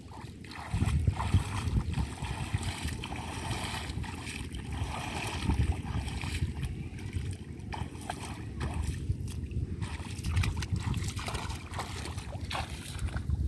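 Shallow muddy water splashing and sloshing in irregular bursts as hands grope through it and legs wade, over a steady low rumble.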